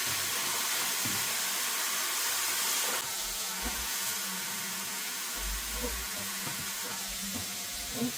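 Breaded chicken strips frying in hot oil: a steady sizzle, a little quieter from about three seconds in, with a few faint knocks.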